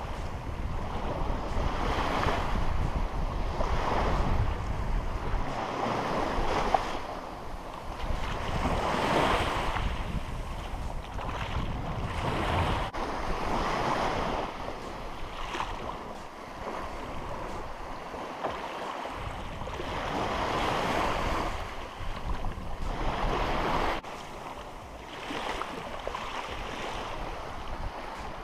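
Small surf breaking and washing up a sandy beach, a rushing swell that comes and fades every two to three seconds. Wind buffets the microphone with a low rumble, strongest in the first few seconds.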